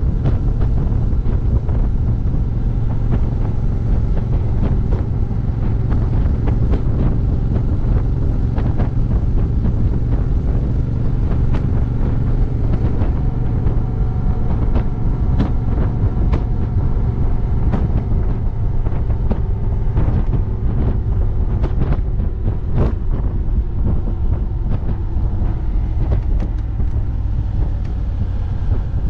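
Wind rumbling steadily on a rear-mounted action camera's microphone while riding, over the Honda Africa Twin's parallel-twin engine running at a steady cruise, with scattered small clicks.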